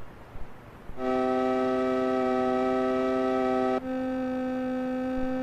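Background music of slow, steady held chords, starting about a second in and changing chord once just before the four-second mark.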